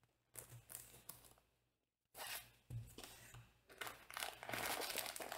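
Faint crinkling and rustling of a clear plastic packaging bag being handled: a few brief rustles in the first half, then a longer rustle over the last second and a half.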